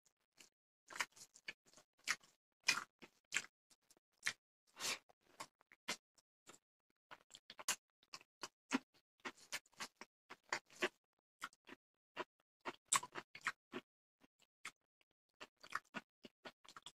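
Close-up sounds of a person eating rice and fish curry by hand: irregular short, wet clicks of chewing and lip-smacking, two to four a second with quiet gaps between, along with the fingers mixing rice on the plate.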